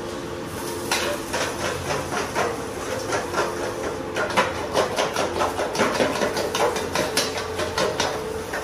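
Eggs being beaten in a stainless steel bowl: a utensil clicks rapidly against the metal, several strikes a second, starting about a second in, over a steady hum.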